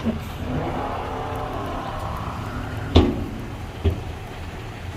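Heavy diesel engine of construction machinery running, rising a little in pitch as it works. A sharp metallic clank comes about three seconds in and a lighter knock about a second later.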